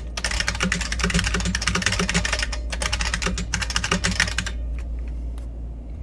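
Fast typing on a New Model F F77 buckling-spring keyboard fitted with Unicomp keycaps: a rapid, dense clatter of keystrokes that stops about three-quarters of the way through. A steady low hum runs underneath and remains once the typing ends.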